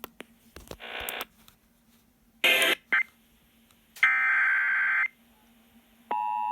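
Emergency Alert System audio relayed over FM radio: a couple of short bursts of noise, then about a second of warbling SAME digital header data tones, and about six seconds in the steady two-tone EAS attention signal begins.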